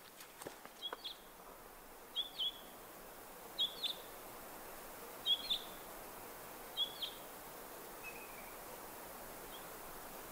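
A small bird calling: short paired notes repeated about every one and a half seconds, five times, then a couple of fainter notes, over a faint steady hiss.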